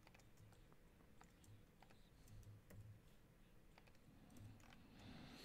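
Near silence with faint, scattered clicks of a computer mouse and keyboard.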